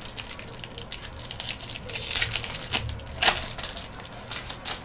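Foil trading-card pack wrapper crinkling and tearing as it is ripped open: a dense run of sharp crackles, with the loudest rips about two seconds in and just after three.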